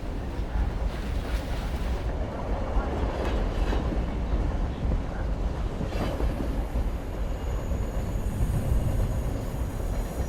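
Passenger train running on the rails: a steady low rumble, with thin high squealing tones joining in about eight seconds in.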